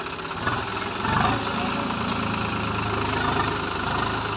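Swaraj 735 FE tractor's three-cylinder diesel engine running, revving up about a second in and holding at higher revs under load as the tractor tries to pull a full sand trolley out of soft sand where its rear wheels are dug in.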